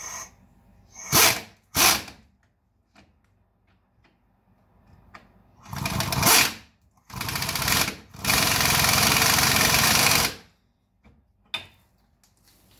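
Air ratchet running the strut-to-knuckle bolts of a front strut: two short bursts, then longer runs, the longest about two seconds, as the bottom bolt is drawn snug.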